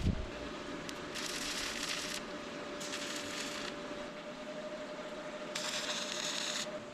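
A small power tool running, with a steady motor whine under a hissing, grinding noise that swells three times as it works the material.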